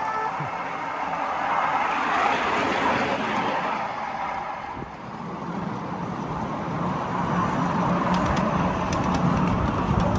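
Ride-on miniature railway train running along the track: a steady rolling rumble that eases off about halfway, then builds again with a low hum.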